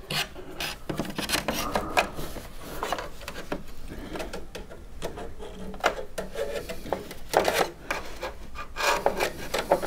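Nvidia Quadro 4000 graphics card being worked into a PCIe slot in a Mac Pro tower: irregular scraping and rubbing with scattered clicks as the card catches on the slot's metal retaining hook.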